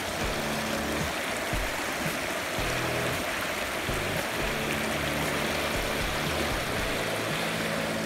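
Shallow stream rushing and splashing over rocks in a steady, even rush, with low background music underneath.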